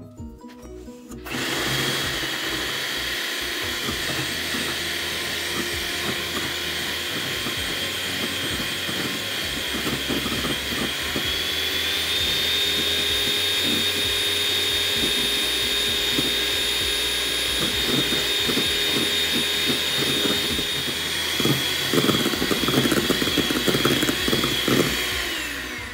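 Electric hand mixer whipping cream in a stainless steel bowl: a steady motor whine that starts about a second in, rises slightly in pitch partway through and winds down near the end. In the last few seconds the beaters rattle against the bowl as the cream thickens.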